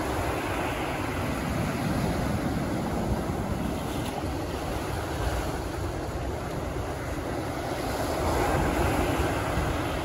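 Ocean surf breaking and washing up the beach in a steady rush, with wind buffeting the microphone; a wave swells louder about eight seconds in.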